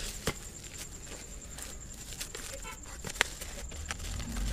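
Taped cardboard parcel being cut open and handled, with scattered sharp clicks and rustling of packaging.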